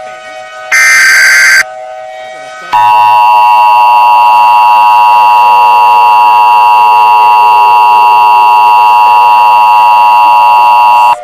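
Emergency Alert System tones: about a second in, a one-second screech of SAME digital header data. From about three seconds in, the loud, steady two-tone EAS attention signal plays unchanged and cuts off abruptly near the end.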